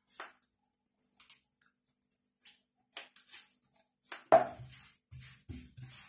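Hands handling a pruned chrysanthemum and its small pot on a table: scattered rustles of leaves and stems and light taps, with one sharp knock about four seconds in.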